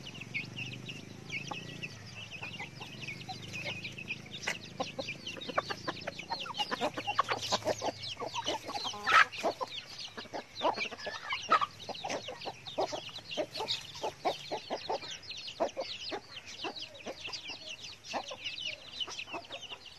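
Chickens clucking: many short clucks that come thick and fast through the middle, over a steady run of high, thin chick peeps.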